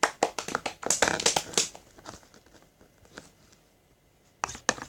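Crinkling and rustling of something crinkly being handled: a quick flurry of crackles in the first second and a half, a single one around the middle, and a few more near the end.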